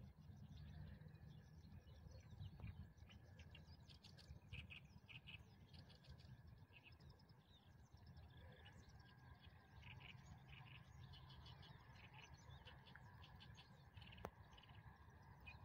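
Faint birdsong: many short chirps from small birds, over a low background rumble. Near the end, a single sharp click.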